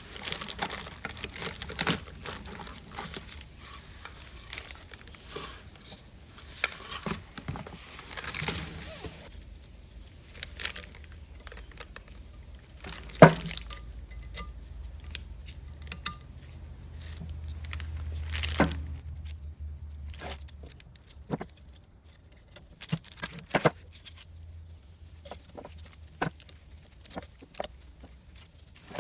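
Small metal parts and hand tools clinking and rattling during brake work, with scattered sharp clicks and stretches of rustling.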